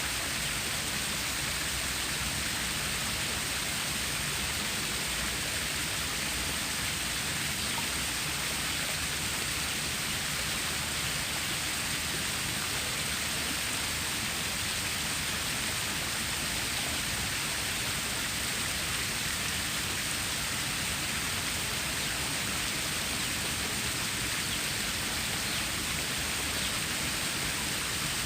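Water stream flowing, a steady, even rushing hiss with no change.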